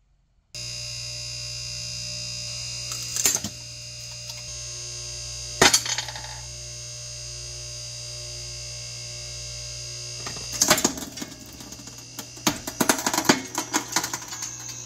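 Hydraulic press motor starting about half a second in and running with a steady hum, with two sharp clicks early on. From about two-thirds of the way through, a mermaid figurine cracks and shatters under the ram in a rapid run of snaps and crackles.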